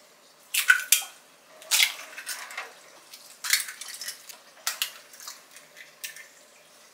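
Eggs cracked one after another into a glass measuring jug: a series of sharp shell cracks and light taps, with the soft splash of the egg dropping in.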